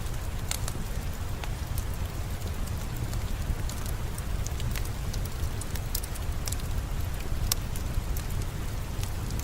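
Steady rainfall with a low rumble underneath, mixed with the irregular sharp crackles of a wood fire in a fireplace.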